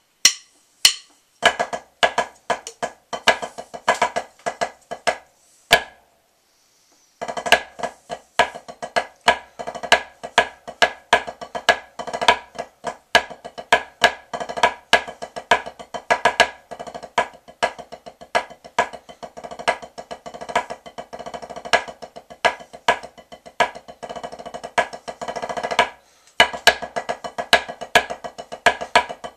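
Rudimental snare drum solo played with wooden drumsticks on a drum head. It opens with spaced strokes, pauses briefly about six seconds in, then runs into long passages of rapid strokes and rolls, with a short break near the end.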